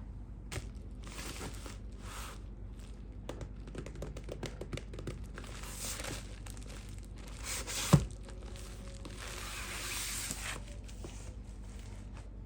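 Product packaging being handled and opened by hand: crinkling and tearing with scattered small clicks, and one sharp knock about eight seconds in.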